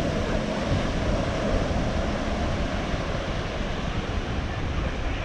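Wind buffeting the microphone in gusts, over a steady wash of surf.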